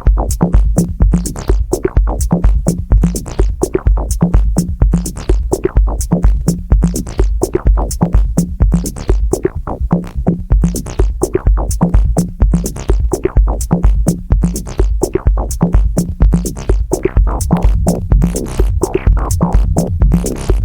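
Electronic music played live on an MFB Tanzbar Lite analogue drum machine and a Dave Smith Mopho monophonic analogue synthesizer: a steady kick-drum beat with crisp hi-hat ticks over a low synth bass line.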